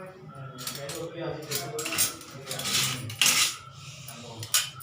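Thin flour-and-egg batter being stirred in a bowl, the utensil scraping and clinking against the bowl's side in irregular strokes.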